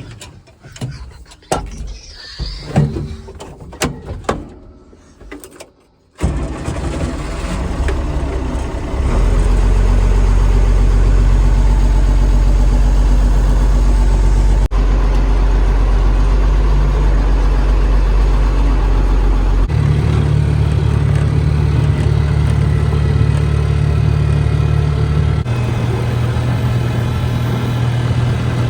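Guitar intro music ends about six seconds in. Then a vehicle engine runs steadily, its pitch and level shifting abruptly a few times.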